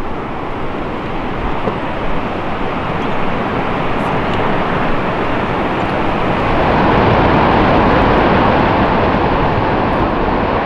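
Lower Falls of the Yellowstone River: the steady, loud rush of a large waterfall, growing somewhat louder about two-thirds of the way through.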